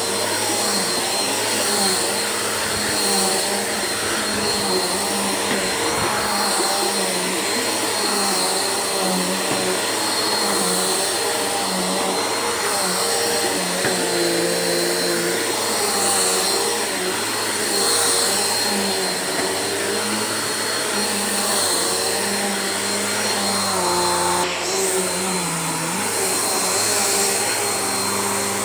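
Bissell upright vacuum cleaner running on carpet, a steady whooshing motor with a high whine, its lower hum wavering up and down as it is pushed over the floor.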